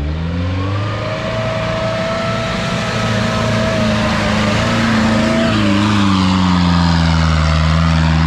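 Off-road 4x4's engine revving hard under load as it climbs out of a dirt ditch. The pitch rises at the start, holds high, then drops a little just past halfway and holds lower.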